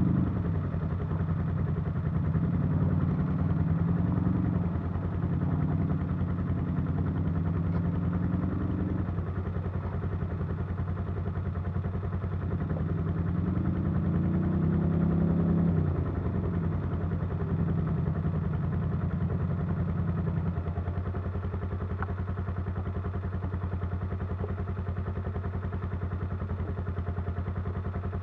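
ATV engines idling while stopped. A steady low engine hum runs throughout, and for about the first sixteen seconds a second engine rises and falls in pitch over it, then drops away and leaves only the steady idle.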